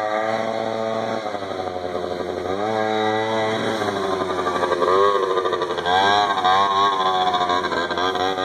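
Small engine of an Arctic Cat 50 youth ATV revving up and down under repeated throttle bursts as it is ridden, its pitch rising sharply several times.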